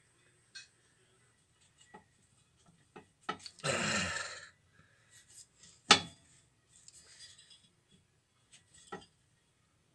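Hands working at engine manifold bolts: scattered small clicks and taps, a short rasping rush about four seconds in, and one sharp, loud click about six seconds in.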